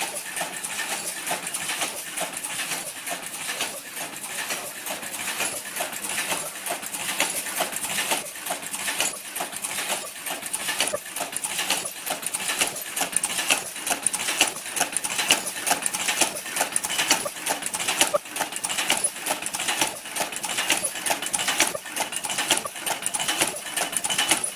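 ELW-60 face-mask ear-loop machine running: continuous rapid mechanical clicking and clattering over a steady high-pitched hiss.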